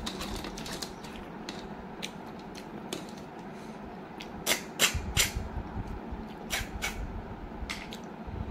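Snail curry being eaten by hand: short, sharp, wet mouth smacks and sucks as the snails are sucked from their shells. They come in a cluster about halfway through, with a few more near the end.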